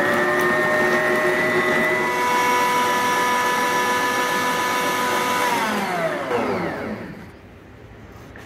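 Bosch Universal Plus stand mixer's 800-watt motor running steadily as its beaters cream butter and shortening. About five and a half seconds in it is switched off, and its whine falls in pitch as it spins down to a stop.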